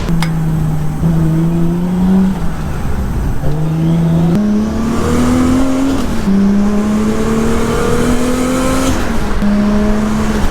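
Nissan R33 Skyline engine under way, pulling through the gears: its pitch climbs, drops at each shift, then climbs again, several times.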